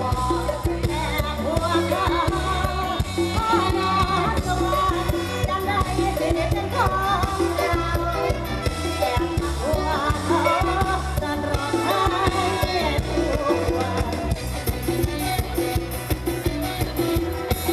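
Live mor lam band music: a woman sings into a microphone over an amplified band with a steady beat of bass and drums.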